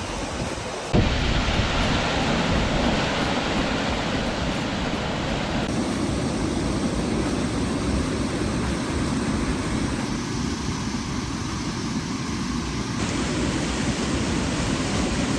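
Rushing water of a rain-swollen creek and its cascades: a steady rushing noise that changes abruptly about a second in and twice more later.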